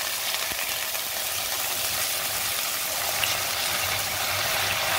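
Milk sizzling and bubbling steadily as it hits hot caramelized sugar in a nonstick wok, the caramel seizing hard as the milk goes in.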